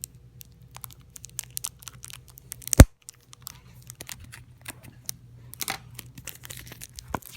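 Plastic shrink-wrap on a card deck box being pierced with a pen and torn open, with irregular crinkling and crackling. One loud sharp click about three seconds in, and another shortly before the end.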